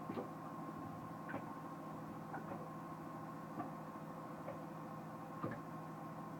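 ProMariner marine battery charger running with a steady hum and a high whine, with sharp clicks about once a second at slightly uneven spacing: the weird noise the charger is making.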